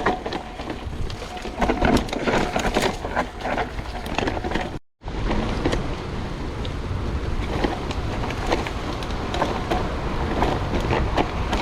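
Mountain bike riding over a rough trail, with a steady rumble and many small knocks and rattles, and wind on the microphone. The sound drops out completely for a moment about five seconds in.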